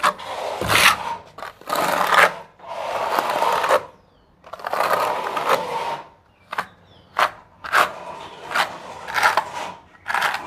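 Steel trowel scraping cement tile adhesive across a rendered cement wall in repeated strokes: a few longer sweeps, then shorter, quicker strokes in the second half.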